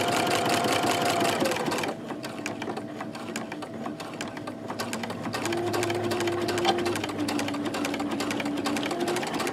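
Electric domestic sewing machine running a straight stitch through knit fabric, its needle ticking rapidly over a steady motor whine. It runs louder for about the first two seconds, then quieter, and the whine's pitch shifts up and back down as the speed changes.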